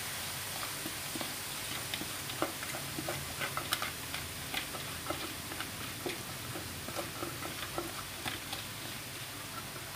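Finely chopped onion frying in hot olive oil: a steady sizzle dotted with crackling pops, busiest in the first half.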